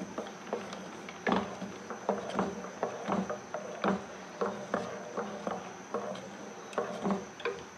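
Wooden spatula stirring thick kheer in an aluminium pot: irregular wet squelches and knocks against the pot, about two or three a second.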